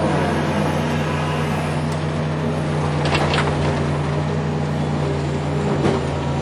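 Heavy earthmoving machine's diesel engine running steadily under work, a constant low drone, with a few brief clicks about halfway through.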